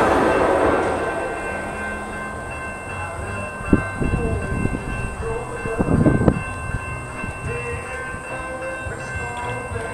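A train running past on the track, its noise fading away over the first couple of seconds and leaving a few steady high tones. Gusts of wind buffet the microphone about four and six seconds in.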